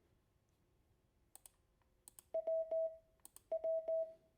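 A Morse code tone sends the letter W, di-dah-dah, twice: one short beep and two long ones each time, starting a little past halfway in. Sharp clicks come just before and between the letters.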